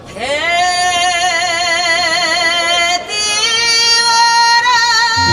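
A woman singing a Korean folk song through a microphone, holding two long notes with wide vibrato. The first swoops up into pitch, and the second starts about three seconds in. A low backing accompaniment comes in at the very end.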